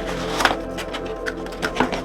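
Background music with steady tones, over a few sharp clicks and knocks from handling the keyboard's packaging while it is unboxed. The loudest click comes about half a second in, and two more come close together near the end.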